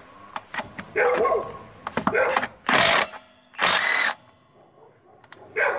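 Avid Power 20V MAX cordless impact wrench run on a wheel lug nut in two short bursts, each about half a second, a little under a second apart. A dog barks just before the bursts.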